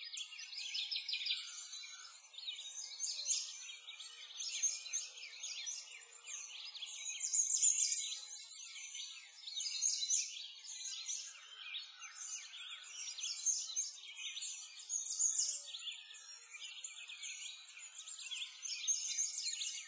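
Many small birds chirping and twittering in a dense, continuous chorus of quick, high calls that swells and fades every second or two.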